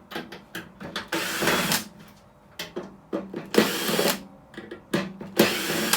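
Cordless drill-driver run in three short bursts of about half a second each, backing screws out while a microwave is dismantled, with small clicks and knocks of parts and tools between the bursts.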